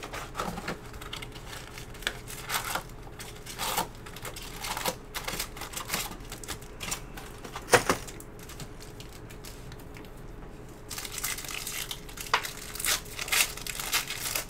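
Trading card boxes and foil packs being handled on a table: scattered taps and clicks of cardboard and packs being set down, with one sharp knock about eight seconds in. Near the end the foil wrapper of a pack crinkles as it is torn open.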